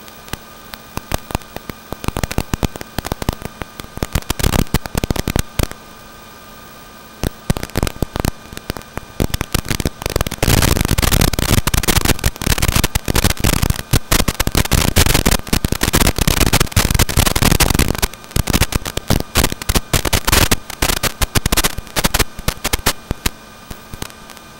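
Crackling static over a steady electrical buzz from an analog FPV video link. The crackle comes in scattered bursts from about two seconds in and grows dense and nearly continuous from about ten seconds in, then breaks up again.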